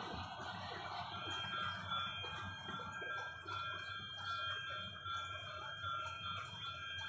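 Sliced onions frying in oil in a nonstick kadai, stirred with a wooden spatula at first. From about a second in, a high wavering tone at several pitches runs behind the frying.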